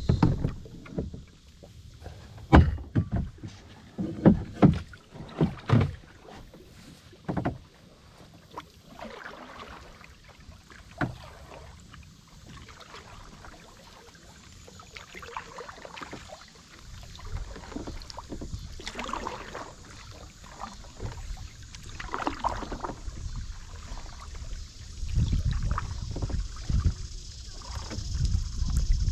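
Kayak paddling: several sharp knocks in the first six seconds, then soft swishes of paddle strokes in the water, with wind buffeting the microphone over the last part.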